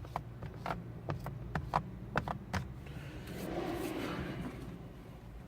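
Several light clicks and taps, then a short rustling scrape about three seconds in: hands handling the plastic interior trim around a car's start button.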